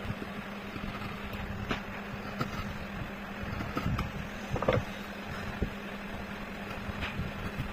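Hand chisel scraping and cutting into wood in short, separate strokes, over a steady low hum.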